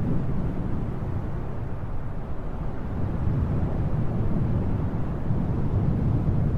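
Wind blowing in gusts, a deep rumbling rush that eases a little about two seconds in and then builds again.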